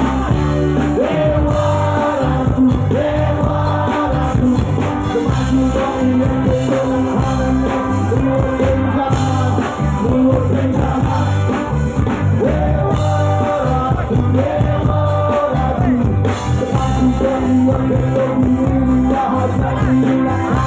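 Live band playing a song, with a male lead singer, electric guitar, bass and drums, heard through the PA from the audience.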